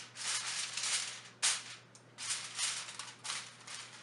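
Aluminium foil crinkling and rustling as it is pressed and crimped by hand around the rim of a baking dish, in irregular bursts with a brief pause about halfway through.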